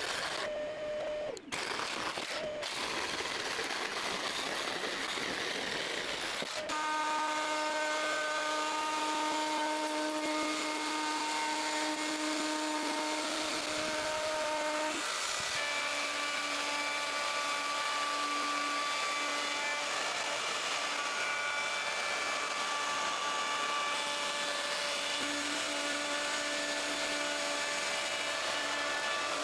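Power tools shaping a wooden tabletop: first a jigsaw cutting a curve, with two short breaks in the first few seconds, then a router and a sander running with a steady high whine that shifts in pitch about halfway through.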